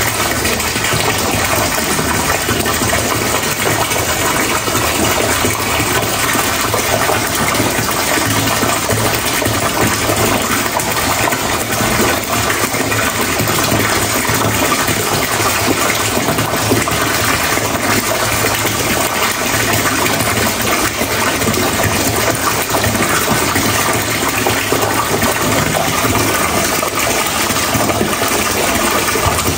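Steady, loud rushing of water.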